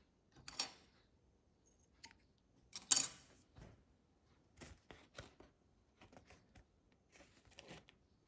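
Short scratchy handling sounds at a fly-tying vise: scissors snipping white floating yarn into wing tufts, the loudest snip about three seconds in after a smaller one near the start, then a string of softer brushing and clicking sounds as the materials are worked.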